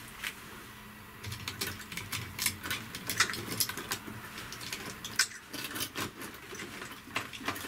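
Irregular small clicks and rattles from hands working the stranded end of a heavy copper cable against a metal connector.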